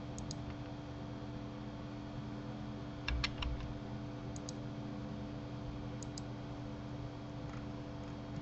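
Scattered sharp clicks of a computer mouse and keyboard, mostly in pairs, with a cluster of three about three seconds in, over a steady low electrical hum.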